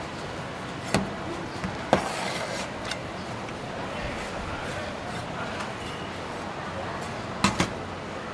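Butcher's knife and cleaver knocking against a stainless-steel counter while cutting pork: sharp knocks about one and two seconds in and a quick double knock near the end, over steady market chatter.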